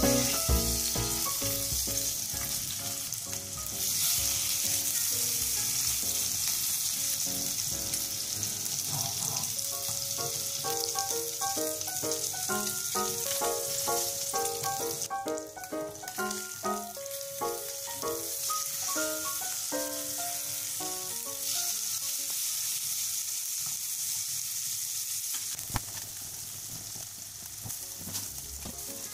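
Salmon steaks sizzling as they pan-fry in hot oil in a frying pan, a steady hiss that grows louder a few seconds in.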